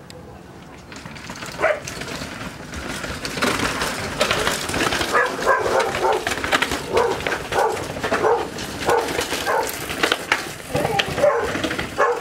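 A dog barking over and over, starting about a second and a half in, over the clatter and knocks of a downhill mountain bike coming down concrete stairs.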